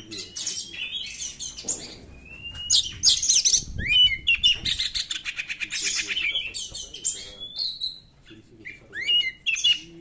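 Oriental magpie-robin singing loud, varied high whistles and rising slurred notes, with a fast rattle of rapidly repeated notes in the middle and a short lull near the end.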